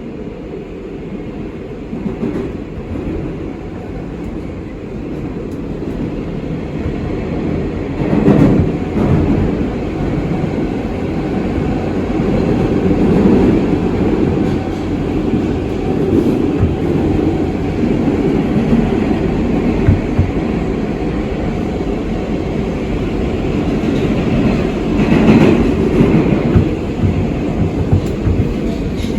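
R142A/R188 subway car on the 7 line running through the tunnel, heard from inside the car: a steady noise of wheels on rail that builds gradually, with louder swells about eight seconds in and again near the end.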